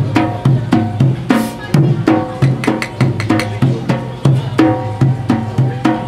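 A drum played in a brisk, steady repeating rhythm, some strokes ringing with a low pitched tone.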